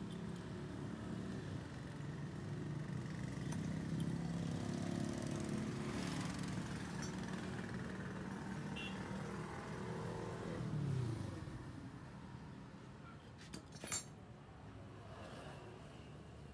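A vehicle engine running steadily, growing louder, then falling in pitch and fading away about eleven seconds in; a single sharp click follows a few seconds later.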